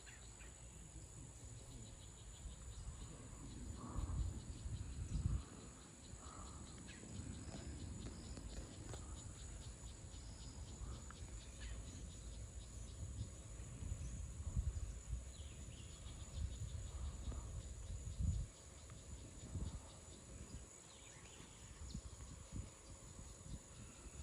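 Steady high-pitched chorus of insects, with wind gusting on the microphone in uneven low rumbles.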